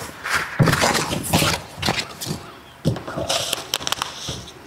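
Paper and cardboard packaging rustling and crinkling in irregular bursts as a glass teapot is unpacked from its box, with a few sharp handling clicks.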